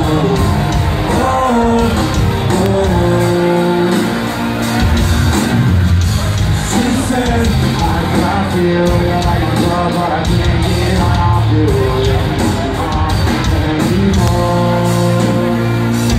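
Live rock band playing loudly, with electric guitar, drums and a sung vocal in held phrases, heard from within the audience.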